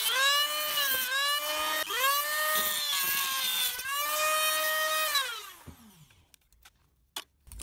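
Rotary multi-tool with a small cutting disc whining at high speed as it cuts plastic tabs off a brake light housing, its pitch sagging and recovering each time the disc bites. About five and a half seconds in it is switched off and winds down, and a few faint clicks follow.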